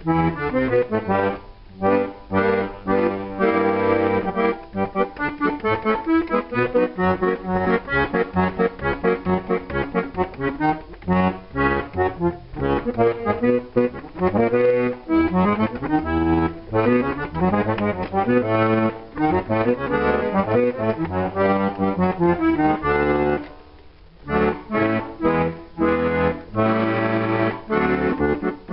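Tosca accordion being played, bass notes and chords in a steady rhythm, with a brief pause near the end. The repairer tests the bass side after curing a sticking bass note, and its reeds sound out of tune: it needs tuning.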